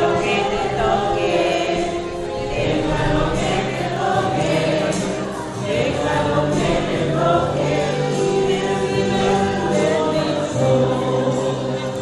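A choir singing a religious hymn, with steady held low notes under the voices.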